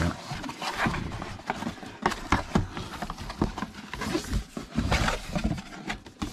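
Cardboard packaging being opened by hand: the box's sleeve and lid sliding, scraping and knocking, with irregular rustles and taps.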